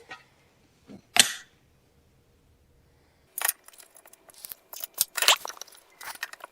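Small metal hardware (bolts, washers and spacers) clinking and clicking while being handled and started into their holes: a couple of sharp clicks about a second in, then a busy run of irregular clicks from about halfway through.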